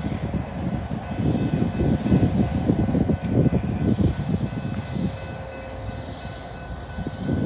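Approaching freight train's lead diesel locomotives, a GE ES44C4 and a C44-9W, running with a low, continuous engine rumble that grows louder in the middle, eases off after about five seconds, and rises again at the end.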